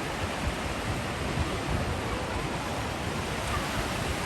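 Sea waves washing on the shore: a steady rush of surf with an uneven low rumble underneath.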